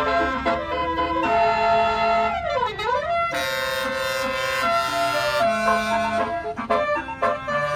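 Bus's Basuri telolet horn playing a tune of held, stepped notes, with a siren-like swoop down and back up in the middle, over a low engine rumble.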